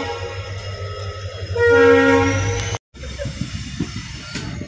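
Train horn blowing a steady blast of about a second, starting about one and a half seconds in. After a sudden cut it gives way to the low rumble and rattle of a moving railway coach.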